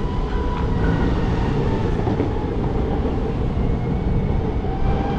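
Wind buffeting the microphone over a steady low rumble of motion, with a faint steady whine above it.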